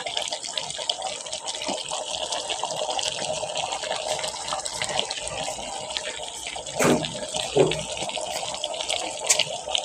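Chicken kachnar curry simmering in a pot on the fire, a steady sizzling hiss with many small pops and crackles as it cooks down on low heat.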